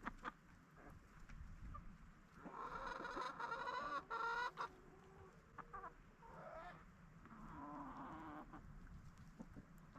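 Hens clucking and calling: a long drawn-out call about two to five seconds in, then shorter calls later.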